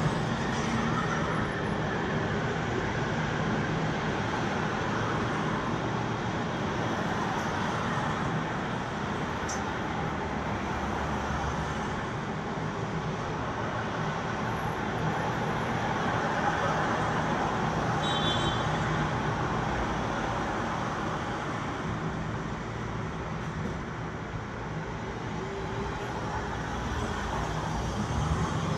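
Steady road traffic noise, with cars and engines running past and the sound swelling and easing as vehicles go by.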